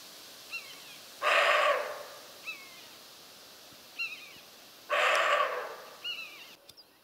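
Roe deer barking: two short, harsh barks a few seconds apart. A small bird chirps briefly several times between them.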